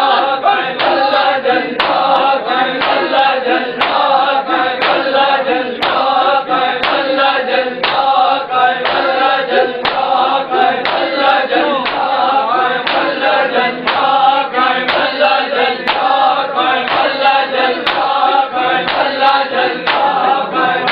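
A group chanting a Punjabi noha together, over steady hand strikes on the chest (matam) roughly once a second.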